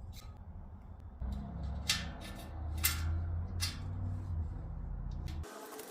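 Hands working on a bicycle wheel: a few short, sharp scrapes and clicks, about three louder ones a second or so apart, over a low steady hum that cuts off suddenly near the end.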